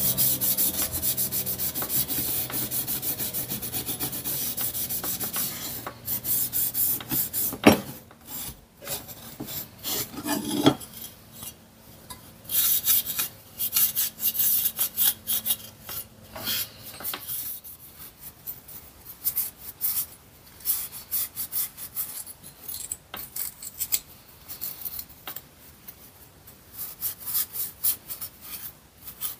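An abrasive pad scrubbing the bare parts of a Dinky Toys car transporter, scuffing them ready for undercoat. Fast, continuous rubbing strokes for about six seconds, then bursts of scrubbing with pauses and a couple of sharp knocks as the parts are handled.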